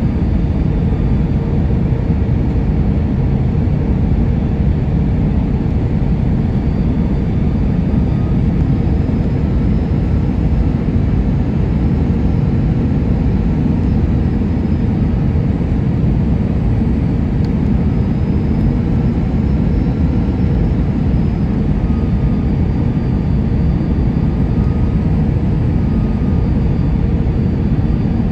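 Steady cabin noise inside an Airbus A320 on final approach: the low rush of engines and airflow, with a few faint steady whining tones above it.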